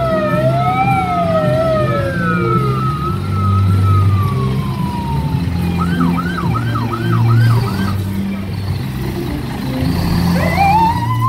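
Parade fire apparatus sirens: several wail sirens sound together and fade away over the first few seconds. A siren yelps briefly, about three cycles a second, about six seconds in, and another siren winds up near the end, over a steady low rumble.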